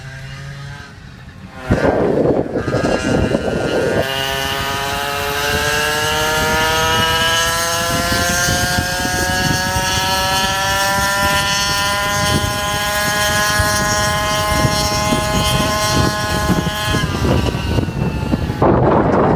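GoPed GSR 46R scooter's two-stroke engine at high revs, a buzzing whine that climbs slowly in pitch as the scooter accelerates. Wind rushes over the microphone, bursting in about two seconds in, and near the end the whine drops out and only the wind is left.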